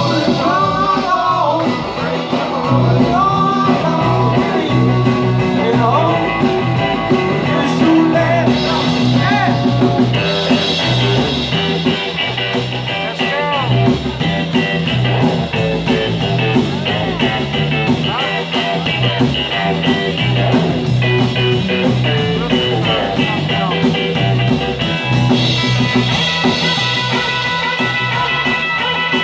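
Live rock and roll band playing electric guitar, bass guitar and drums, with singing, recorded on a cell phone's microphone.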